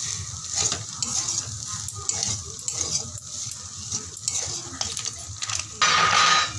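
Metal spatula stirring and scraping fusilli pasta with fried egg around a metal kadai on the stove, in a run of quick scrapes and clinks. About six seconds in, a loud hiss lasts under a second.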